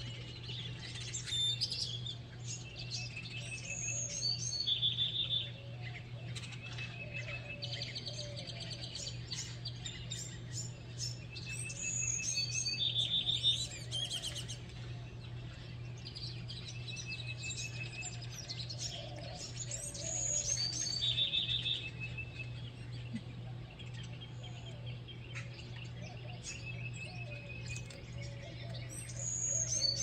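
A morning chorus of several songbirds singing and chirping, with one bright song phrase recurring several times, over a steady low hum.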